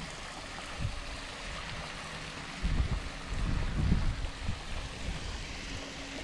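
Wind buffeting the microphone outdoors: low, gusty rumbles over a steady hiss, picking up about two and a half seconds in.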